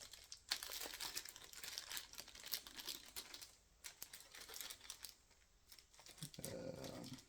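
Plastic packaging crinkling in irregular bursts as it is handled and pulled at, with a brief tearing sound.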